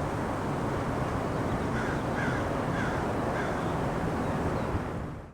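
Steady ocean surf and wind on the microphone; partway through, a bird calls four times in quick succession.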